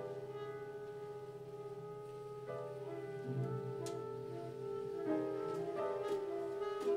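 Free-improvised jazz: upright piano with wind instruments (clarinet, trumpet, saxophone) holding long, overlapping notes, new notes coming in about halfway through and again near the end.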